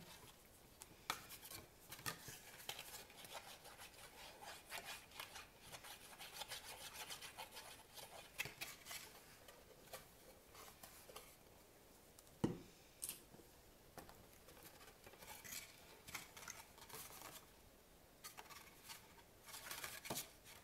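Faint rustling and rubbing of kraft cardstock being handled, glued and pressed together, with small irregular taps and one sharper knock about twelve and a half seconds in.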